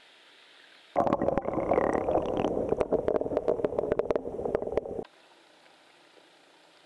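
Water gurgling and sloshing around a camera held underwater among water weeds, with many irregular clicks and knocks. It starts abruptly about a second in and cuts off about four seconds later, leaving only a faint hiss.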